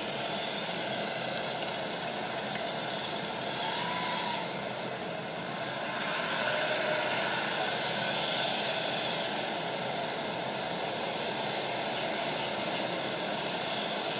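Steady outdoor road noise: passing traffic and wind making an even hiss, swelling slightly about halfway through.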